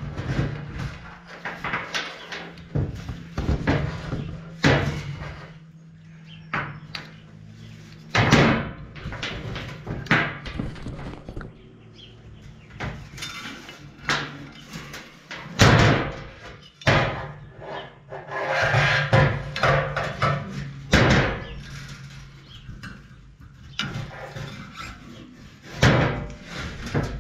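Irregular clunks and knocks with scraping and rubbing: a chrome steel handlebar bumping and sliding on a stainless-steel bench while a wiring harness is pulled through the inside of the tube.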